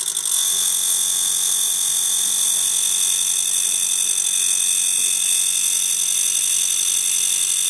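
Diamond wheel grinding the flute of a high-speed steel end mill: a loud, steady, high-pitched whine made of several whistling tones.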